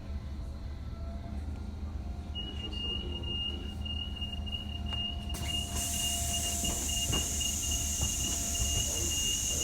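Train running with a steady low rumble. About two seconds in, a steady high-pitched squeal starts, and from about halfway a loud hiss joins it.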